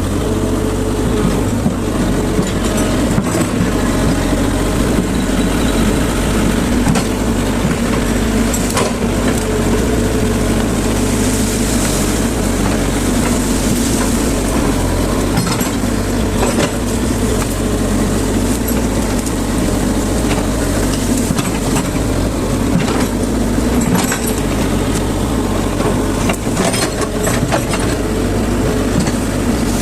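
Hydraulic excavator's diesel engine running steadily, with a few sharp cracks and knocks scattered through it.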